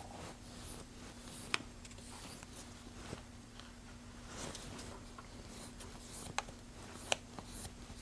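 Nail buffer rubbed against the edge of a shear blade, faint scratchy strokes polishing off the rough spots and nicks, with a few sharp clicks, one about a second and a half in and two near the end.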